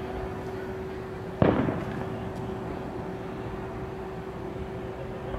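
An aerial firework shell bursting once with a sharp boom about one and a half seconds in, its echo rolling away over the next half second.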